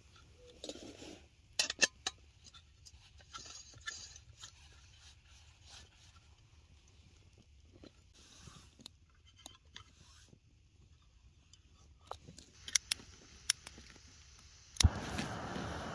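Clicks, knocks and scrapes of a portable camping gas stove being handled and fitted to a gas canister. About a second before the end comes a sharp click, then a steady gas burner hiss as the stove lights.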